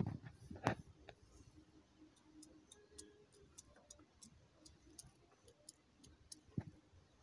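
Faint, scattered small clicks and taps, with two sharper knocks in the first second.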